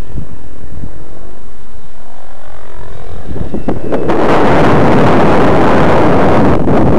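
Electric 700-size RC helicopter on a 6S battery, flying overhead at low rotor head speed: a soft whir of rotor and motor, with faint tones that slide in pitch as it passes. A loud rushing noise takes over about four seconds in.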